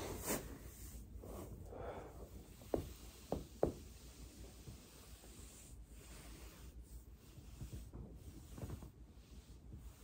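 Three sharp cracks in quick succession about three seconds in, joints of the upper back popping as the spine is pressed over a foam roller, amid the soft rubbing of the body and roller on carpet.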